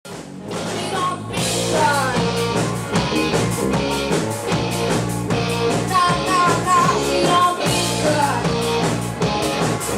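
Rock band playing live, with electric guitar and drums, cutting in abruptly from silence.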